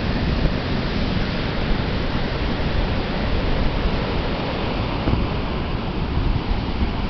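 Atlantic Ocean surf washing onto the beach as a steady hiss, with gusts of wind buffeting the microphone.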